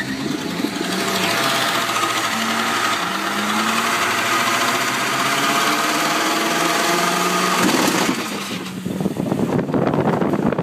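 Car engine revving hard, its pitch climbing steadily for several seconds, then breaking off suddenly about eight seconds in into a rougher rushing noise.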